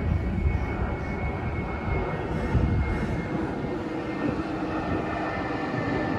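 Jet airliner's engines as the plane comes in to land: a continuous rumble with a steady high whine that drops slightly in pitch near the end.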